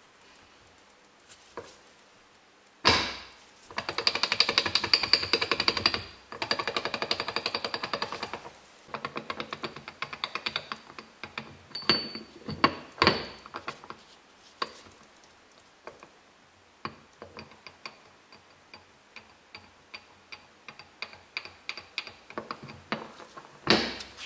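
BMW S50B32 VANOS oil pump hub, its tabs knocking against the drive disk: a strong click, two dense fast rattles of a couple of seconds each, then many separate metallic clicks and short rattles. The noise comes from play between the tabs and the disk, with worn indentations in the holes, not from the helical gears.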